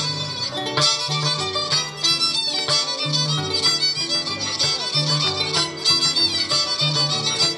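Andean violin and harp music of the scissors dance (danza de tijeras): a fast violin melody over a repeating pattern of plucked bass notes.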